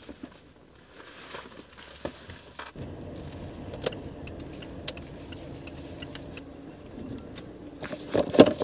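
Inside a car: keys jangling and small clicks, then the car's engine comes on suddenly about three seconds in and runs steadily, with a few louder knocks near the end.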